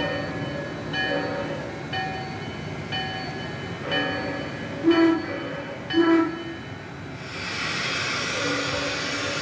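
Large-scale model steam locomotive's sound effects: a locomotive bell ringing about once a second, two short whistle blasts about five and six seconds in (the loudest sounds), then a steady steam hiss from about seven seconds on.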